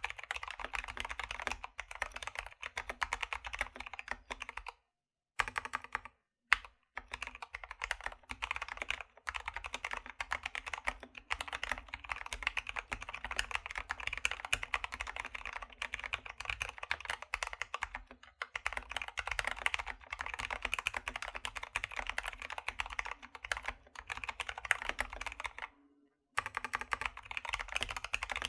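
Keychron K2 V2 aluminium-bodied mechanical keyboard being typed on fast and continuously: lubed Gateron Brown switches, clipped and lubed stabilizers, MT3 keycaps and a foam-filled case give a dense run of keystroke clacks. Typing stops briefly a few times, with one sharper single strike about six and a half seconds in.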